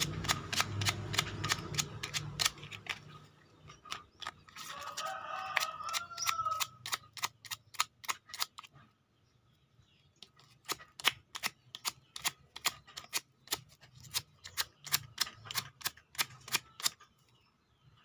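Sandpaper scrubbing a strip of old inner-tube rubber in short, quick strokes, about three a second, roughening the surface so the glue will hold. The strokes stop for about a second and a half a little past the middle, then go on.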